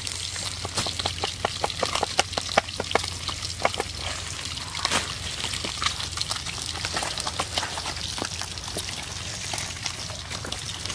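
Coconut-shell bowls and wet chopped red chilies being tipped, scraped and set down, making a run of light clicks and taps, thickest in the first few seconds. Under them are a steady background hiss and a low hum.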